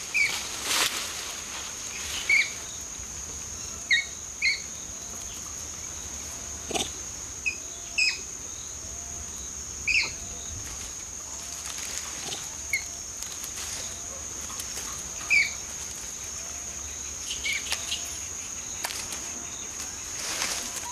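Outdoor wildlife ambience: a steady high-pitched insect trill, with short, sharp high calls from animals scattered through it every second or two.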